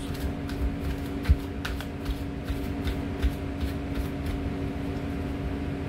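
A deck of reading cards being shuffled overhand by hand: a run of quick, irregular soft flicks and taps. A steady low machinery hum runs underneath.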